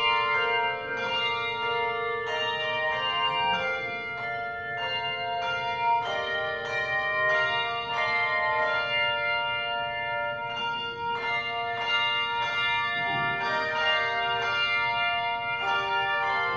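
A handbell choir playing a tune: handbells struck one after another and in chords, each note ringing on and overlapping the next.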